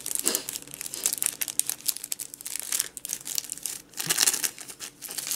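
Clear plastic packaging crinkling as a sheet of silicone stamps and its plastic bag are handled, in quick irregular crackles that are densest at the start and again about four seconds in.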